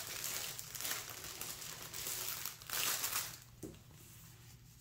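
Clear plastic sheeting crinkling as it is lifted and handled, dying down about three seconds in.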